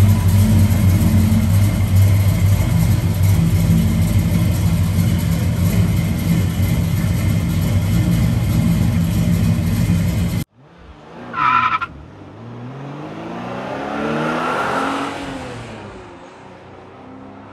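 1986 Chevrolet pickup's engine idling steadily, then cut off abruptly about ten seconds in. A short tone follows, then a quieter sweeping sound effect that rises and falls.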